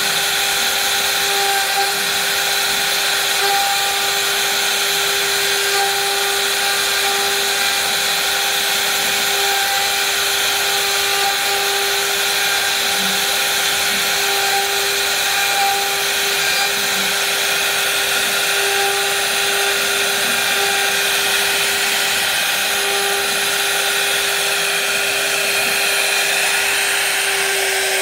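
CNC router spindle carving a relief pattern into hardwood: a steady whine over an even hiss of the bit cutting.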